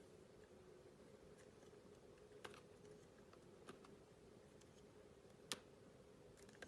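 Faint, sparse clicks from cutting clear soap with a knife: four short taps over a low steady hum, the loudest about five and a half seconds in.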